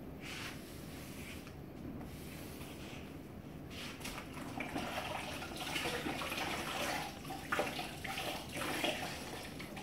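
Water sloshing and splashing as a wet grout sponge is worked in a bucket of water, getting louder and busier from about four seconds in.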